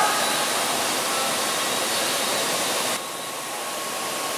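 Steady rushing ambient noise of a locomotive repair workshop. About three seconds in it becomes a little quieter and duller, with a faint steady tone underneath.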